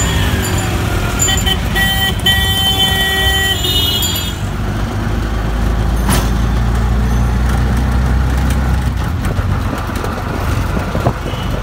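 Busy street traffic with vehicle horns honking for the first few seconds, then the steady low rumble of an auto-rickshaw engine heard from inside its cabin, with one sharp knock about six seconds in.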